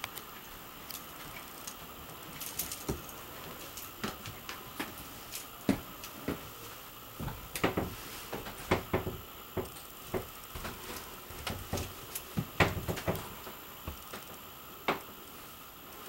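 Footsteps and small knocks of someone walking through a camper's interior: irregular clicks and soft thumps, busiest in the middle, over a steady low hiss.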